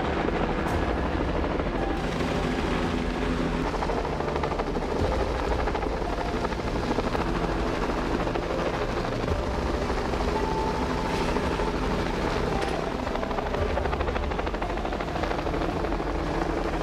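Helicopter hovering close overhead with a utility pole slung beneath it on a long line, its rotor beating in a fast, steady chop.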